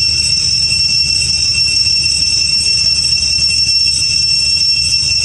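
Cicada chorus: a steady, shrill drone without a break, over a low rumble.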